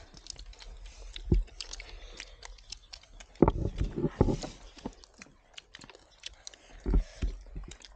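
Close, crackly rustling and small clicks of hands picking through food and stripping fresh greens. Several dull thumps cut through it: one about a second in, a cluster midway and another near the end.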